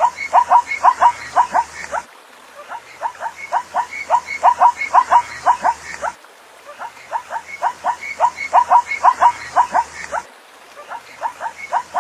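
Zebra barking call: a rapid series of short yelping barks, about four a second, growing louder through each bout. The bout, about four seconds long, repeats back to back with a brief gap between.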